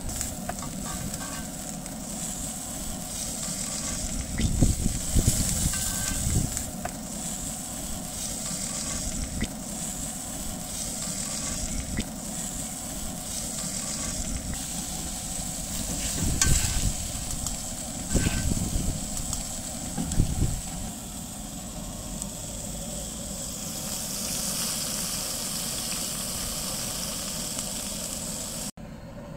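T-bone steak sizzling in hot butter in a cast-iron grill pan while being basted with a spoon, a steady sizzle that swells several times as fat is spooned over the meat, with occasional light clinks of the spoon against the pan.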